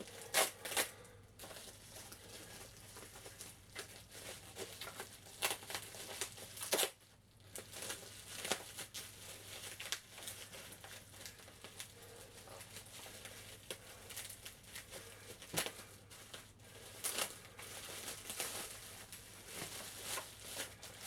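Packing material being unwrapped by hand: irregular crinkling and tearing, with sharp crackles scattered throughout.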